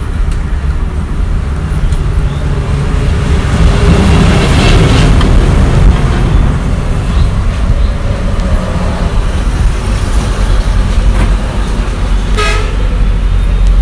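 Road traffic running steadily, with a vehicle horn tooting briefly near the end.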